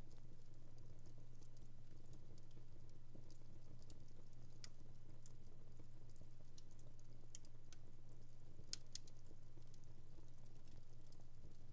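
Wood fire in a home fireplace crackling softly, with scattered small pops and a couple of sharper snaps, over a steady low hum.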